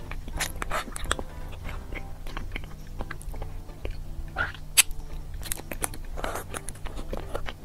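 Close-miked mouth sounds of eating a dense, soft chocolate dessert off a spoon: wet, sticky smacks and clicks at irregular intervals, with faint background music underneath.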